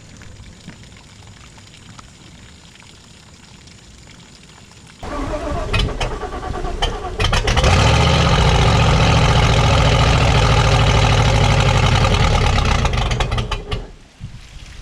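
Boat's Chevy small-block engine cranked by its starter about five seconds in, catching and running steadily for about six seconds before shutting off. It is run briefly so its mechanically driven water pump draws up cooling water.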